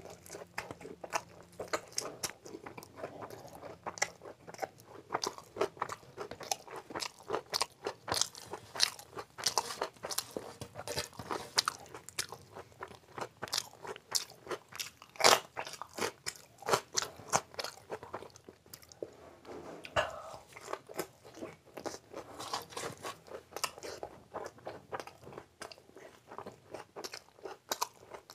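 Close-miked eating sounds: wet chewing, lip smacking and crunchy bites of puri with Manchurian gravy and fried rice. A sharp crunch about halfway through comes as a raw green chili is bitten.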